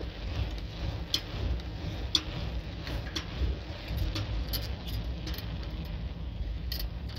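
Riding a bicycle at speed: a steady low rumble of wind on the microphone and road noise, with light sharp clicks and rattles at irregular moments, about one a second.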